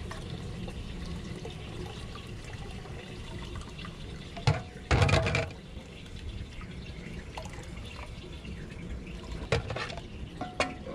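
Coconut milk pouring and trickling from a plastic jug through a small plastic strainer into a pot. A loud clatter comes about four and a half to five and a half seconds in, and a few sharp taps near the end.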